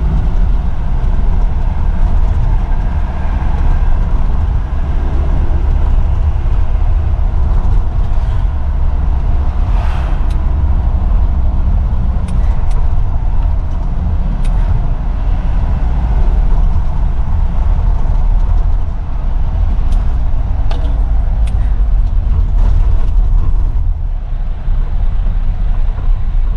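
Isuzu Elf NKR 55 microbus's four-cylinder diesel engine running steadily under way, heard from inside the cab as a loud low drone with road noise. A few short clicks or rattles come through around the middle and again later.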